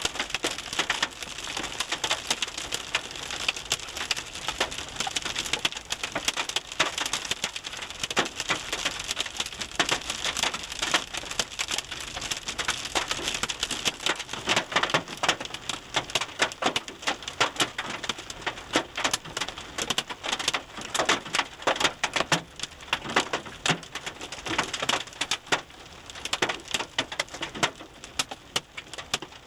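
Hail and rain pelting the roof and windshield of a moving car, heard from inside the cabin: a dense, rapid clatter of hits that thins out in the second half into more separate, sharper impacts.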